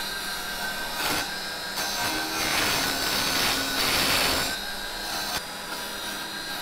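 Small 350 W mini wood lathe running with a steady whine while a hand-held chisel scrapes the spinning softwood spindle. The cutting noise grows louder about two seconds in and eases off around four and a half seconds.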